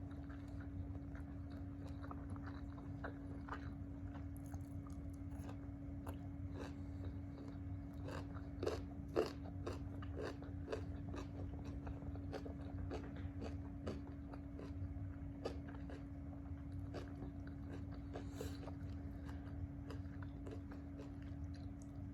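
A person eating close to the microphone: a run of biting and chewing with crunchy, clicking mouth sounds, the loudest bite about nine seconds in. A steady low hum runs underneath.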